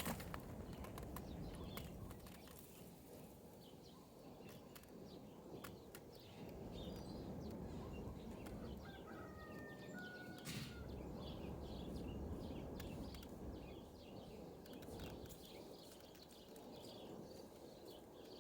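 Faint bird chirps and short whistled calls repeating over a steady low background rumble.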